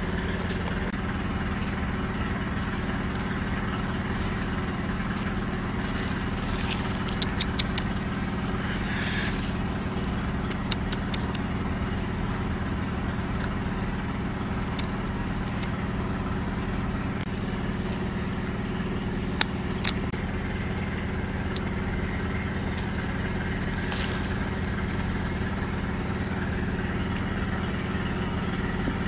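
A steady, unchanging low hum with an engine-like drone, and a few faint clicks scattered through it.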